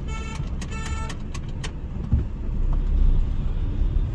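Two short vehicle horn beeps close together, then a few quick ticks, over the steady low rumble of traffic and the car's engine heard from inside the cabin.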